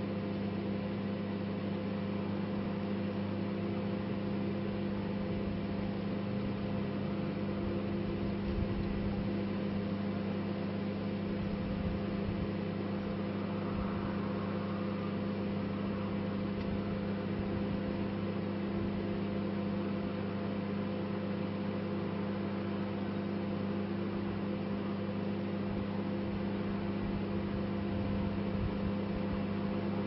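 Microwave oven running: a steady hum from the transformer and cooling fan, with no change through the stretch.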